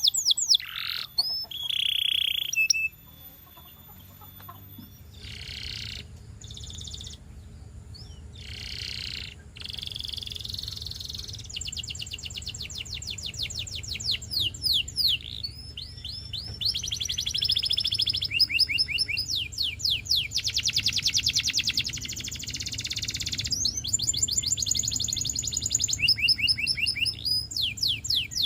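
Russian canary singing a long song of fast trills and rolls and sweeping high whistles, in phrases broken by brief pauses. A loud phrase cuts off sharply about three seconds in, and the song builds back up from about five seconds.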